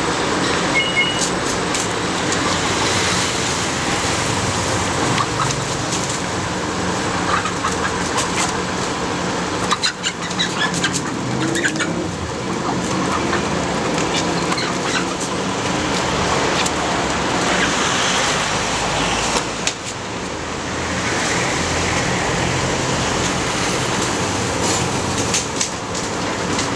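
Steady street traffic noise, with occasional clucks from caged chickens and short knocks and rattles as the wooden-and-wire chicken cages are handled.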